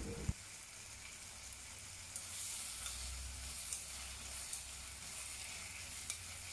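Asparagus and carrot slices sizzling faintly in a nonstick frying pan with freshly added soy and oyster sauce, stirred with chopsticks. The sizzle grows a little louder about two seconds in, with a few light clicks.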